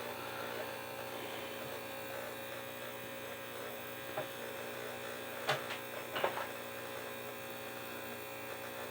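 Steady electrical hum, with a few light, sharp clicks about four to six seconds in.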